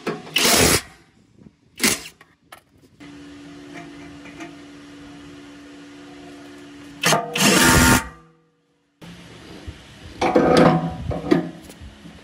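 Cordless impact driver hammering on the bolts of a planer's gearbox cover in two loud bursts, a short one at the start and a longer one of about a second partway through, with a quieter steady hum between them. A few knocks of metal near the end.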